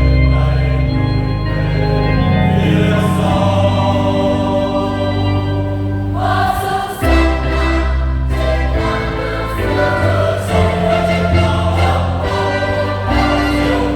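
Choir singing a Vietnamese Easter hymn over instrumental accompaniment with a strong sustained bass. There is a brief dip about halfway through before the next phrase begins.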